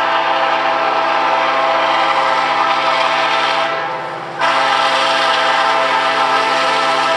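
Multi-note air horn of an approaching Union Pacific SD70ACe freight locomotive. It sounds a long blast, several notes held together, that fades off about four seconds in. Half a second later a second long blast starts abruptly and holds.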